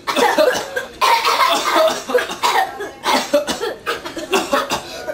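Repeated coughing in three or four fits with short pauses between, acted to portray whooping cough.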